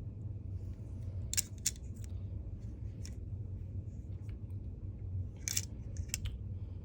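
Scattered sharp metallic clicks from a Leatherman multi-tool's pliers being handled and worked, a pair about a second and a half in and another pair near the end, over a low steady hum.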